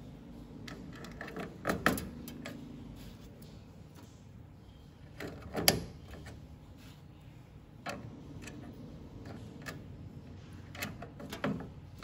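Sharp clicks and knocks of computer parts being handled and fitted during a CPU heat sink installation, a few at a time and the loudest about halfway in, over a steady low hum.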